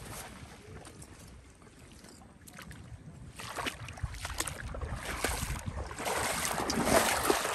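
Water splashing and sloshing in irregular strokes, faint at first and growing louder from about halfway through.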